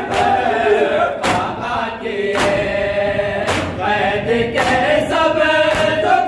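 Men's voices chanting an Urdu noha, a Shia lament for Hussain, together in one melody. Sharp hand slaps of matam, chest-beating in mourning, cut through it about once a second.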